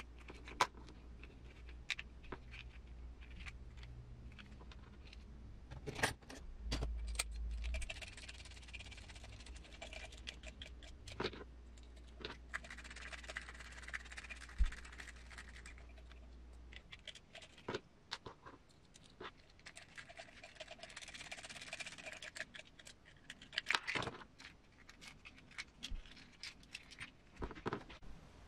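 Small metal and plastic transmission parts being handled and fitted by hand: scattered light clicks and clinks, with a few stretches of faint scraping and rustling.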